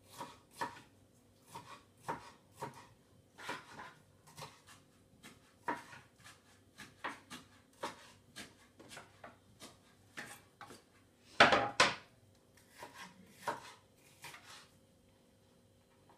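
Kitchen knife slicing bell pepper on a wooden cutting board: irregular knocks of the blade on the board, about two a second, with two louder strikes about three quarters of the way through. The chopping stops shortly before the end.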